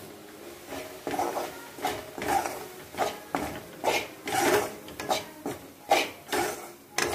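Metal spoon scraping and stirring wheat flour through hot ghee in a kadhai, with rhythmic scrapes about twice a second. The flour is being roasted for halwa.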